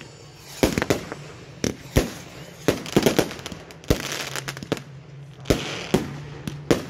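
Fireworks display: about ten sharp bangs of aerial shells bursting at uneven intervals, with a spell of crackling about four seconds in.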